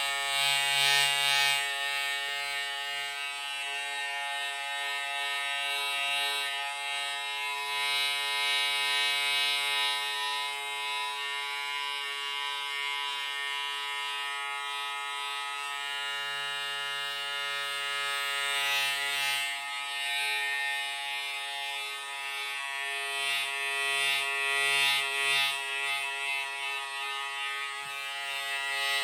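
Electric shaver running with a steady buzz, its level swelling and easing a little now and then.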